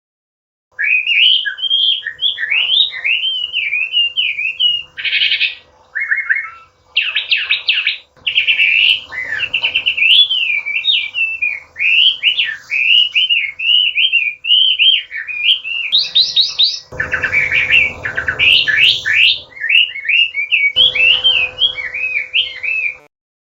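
Chinese hwamei singing a long, varied song of rapid whistled phrases, starting about a second in and stopping shortly before the end.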